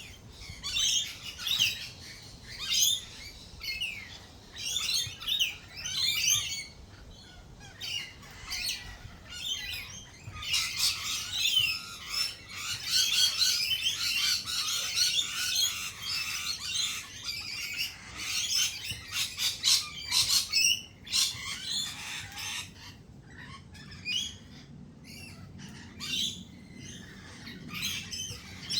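Australian native birds chirping and squawking: many short, high calls overlapping, busiest in the middle, where they thicken into a dense chorus.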